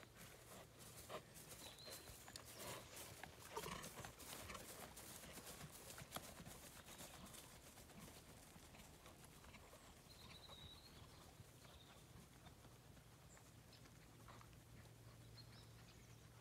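Faint hoofbeats of a ridden horse on grass, an uneven run of soft knocks that fades out after about eight seconds as the horse moves away.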